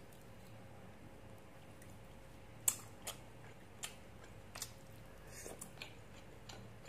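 A person chewing roe-filled small squid: faint wet mouth sounds with a handful of short, sharp smacks and clicks, the loudest about a third of the way in.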